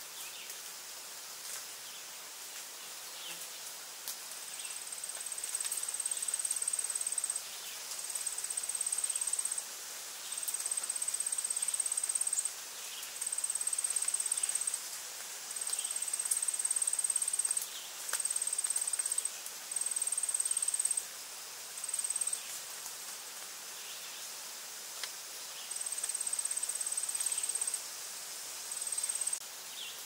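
An insect trilling in high-pitched bursts of one to three seconds, about ten times with short gaps, starting a few seconds in, over a soft steady hiss of outdoor ambience.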